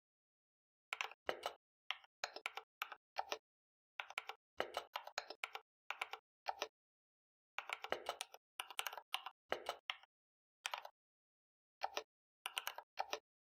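Keys being typed on a computer keyboard, entering a short BASIC program: quick runs of clicking keystrokes broken by short pauses, starting about a second in.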